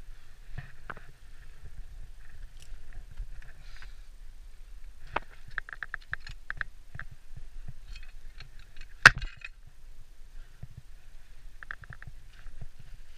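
Ice axe and climbing gear knocking and scraping on rock: a run of small clicks and scrapes, a quick cluster about five to seven seconds in and one loud sharp click about nine seconds in, over a low steady rumble.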